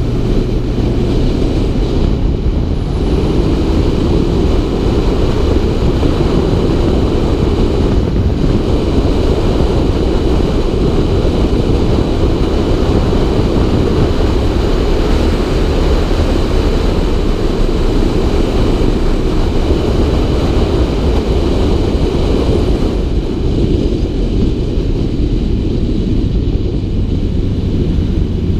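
Honda CB600F Hornet's inline-four engine running at road speed, heard under heavy wind rumble on a helmet-mounted microphone. The wind noise eases somewhat in the last few seconds.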